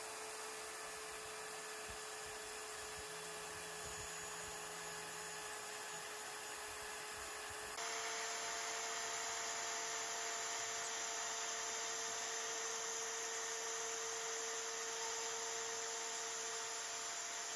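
The 710 W router spindle of a desktop CNC router runs at speed with a steady high whine and a hiss, while a 1/4-inch two-flute flat end mill cuts a contour through walnut. The sound becomes slightly louder and brighter about eight seconds in.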